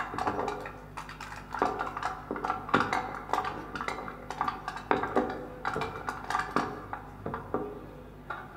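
Irregular clinking and tapping on small percussion, sharp metallic-sounding hits with short rings, played as part of a live improvised score. The hits come in loose clusters and thin out near the end.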